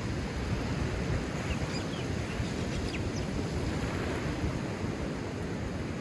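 Ocean surf breaking and washing over a rocky shore, a steady rush, with wind rumbling on the microphone.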